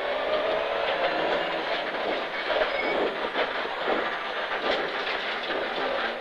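Rally car heard from inside the cabin, driven at an easy, steady pace: the engine runs at a fairly even pitch under a constant clatter and rattle of the car's body and fittings.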